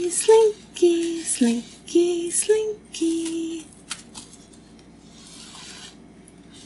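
A woman humming a short tune of held notes for the first few seconds while a toy slinky's coils click and slide against each other; after that only a few light clicks and a faint rustle of the slinky.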